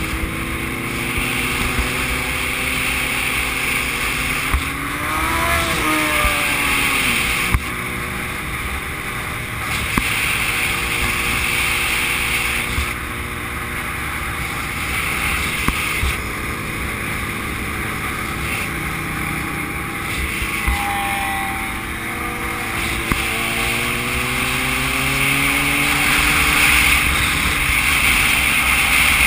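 Motorcycle engine running under way, its pitch sliding up and down with throttle and gear changes, under heavy wind rush on the microphone.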